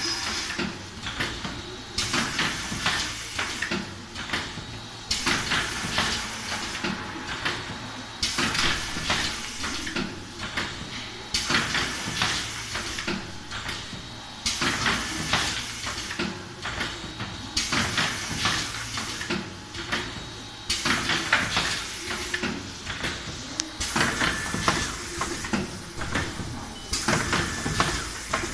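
Robocap 20 N coffee-capsule filling and sealing machine running through its cycle, a burst of hissing and clatter about every three seconds as its pneumatic stations work and the turntable indexes. That is about twenty capsules a minute.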